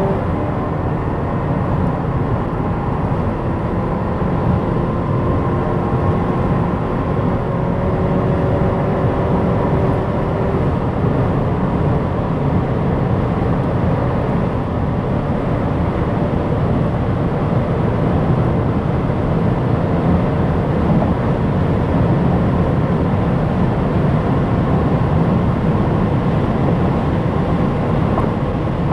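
Opel Insignia GSI driving at high autobahn speed: a steady, loud rush of road and wind noise. A faint engine tone climbs slightly for about the first ten seconds, then fades out under the rush.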